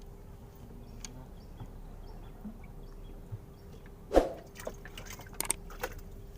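Water lapping and dripping around a fishing boat under a faint steady hum, with a sharp knock about four seconds in and a few lighter clicks after it.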